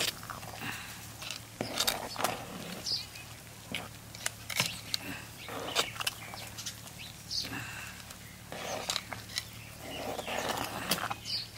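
Metal ladle stirring a thick, steaming moringa-leaf hotchpotch in an aluminium pot, scraping and clinking against the pot at irregular intervals.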